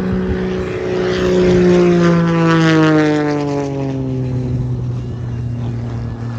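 Propeller-driven aerobatic biplane flying past, its engine and propeller loud, then dropping steadily in pitch as it passes by and moves away.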